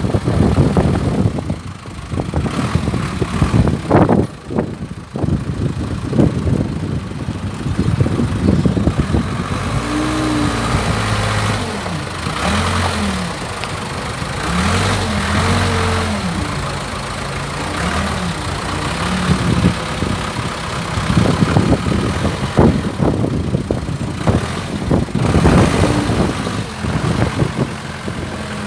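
Case 580E loader backhoe's diesel engine running, its pitch rising and falling repeatedly through the middle as it revs up and drops back, with scattered knocks and clanks.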